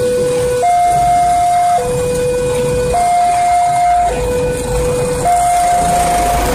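Railway level-crossing alarm sounding a two-tone hi-lo pattern, each tone held about a second before it switches to the other. A low rumble builds up near the end.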